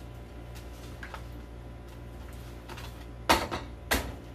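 A metal spoon clinks sharply against a cooking pot or bowl, with a faint tap about a second in and two loud clinks near the end, over a steady low hum.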